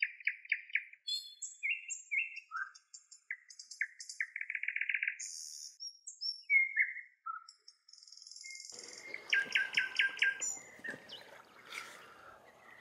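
Songbirds chirping, with short calls and several rapid trills. About nine seconds in, a faint steady outdoor background comes up under the continuing bird calls.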